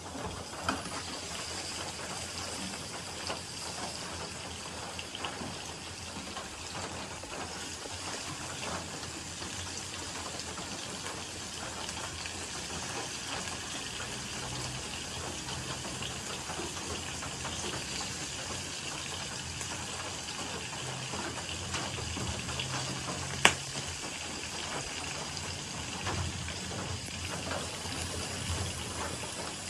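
Cubes of pork sizzling as they fry in hot oil in a nonstick frying pan, with small clicks as more pieces are set in with a spatula. One sharp knock stands out about three-quarters of the way through.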